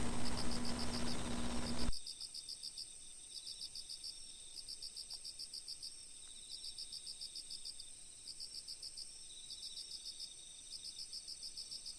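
Crickets chirping in repeated short pulsing trills with brief gaps between them. A hiss and low hum under them cut off suddenly about two seconds in.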